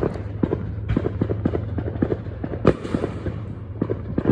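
Fireworks going off in a rapid, irregular string of pops and cracks, with one louder bang about two and a half seconds in.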